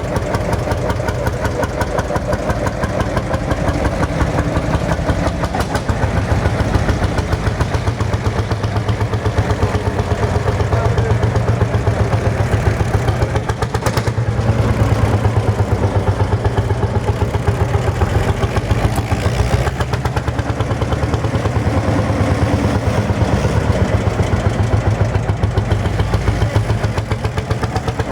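Single-cylinder hot-bulb two-stroke tractor engine of the Lanz Bulldog type, running steadily with a regular beat of firing strokes.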